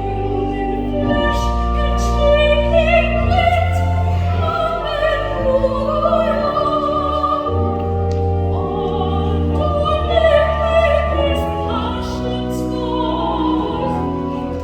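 Soprano singing with vibrato over sustained organ chords and a deep held bass.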